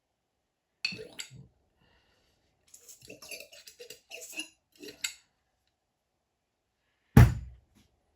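Metal motorcycle fork parts clinking and knocking as they are handled: a single clink about a second in, a run of small clinks midway, then one loud, heavy thud near the end as something is set down.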